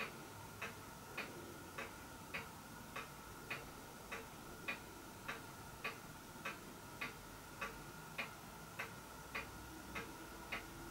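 Faint, evenly spaced ticking, a little under two ticks a second, over a faint steady whine.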